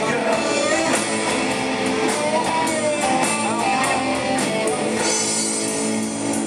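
Live rock band playing: an electric guitar lead with bent notes over bass guitar and drums, with cymbal hits about twice a second. About five seconds in, the band settles onto long held chords.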